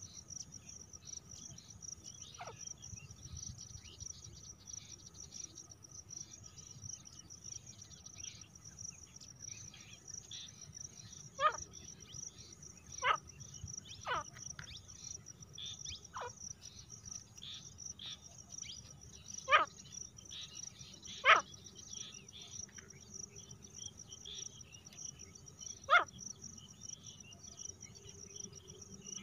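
Female grey francolin giving about eight short, sharp calls that slide quickly downward in pitch, scattered several seconds apart and mostly in the second half. A steady high insect chirring runs underneath throughout.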